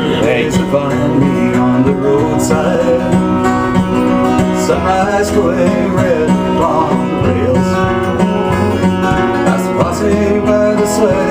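Fingerpicked acoustic string instrument playing a folk ballad introduction, plucked melody notes over a steady bass line.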